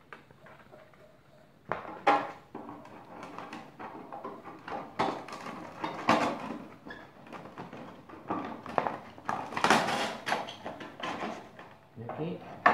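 A 100 mm cloth sanding belt is being slid off and onto the rollers of a Lombarte BDX48 belt-and-disc sander, with the belt tension released and the motor off. Starting about two seconds in, the stiff abrasive belt rustles and scrapes against the machine, with irregular clicks and knocks.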